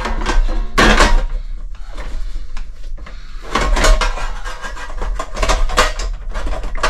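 The cover of a Honeywell HZ510 space heater being fitted back onto its base: repeated knocks and clatter of the casing against the frame, in several clusters, as it is pressed and worked into place.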